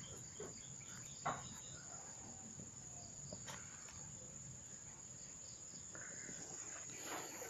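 Faint, steady high-pitched drone of insects calling. A single brief knock comes about a second in.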